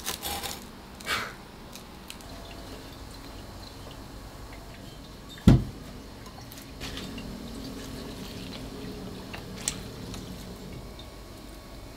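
Wooden tongs scraping as toast is lifted out of a toaster, then the soft wet handling of cucumber slices in a glass bowl. A single heavy thud comes about five and a half seconds in.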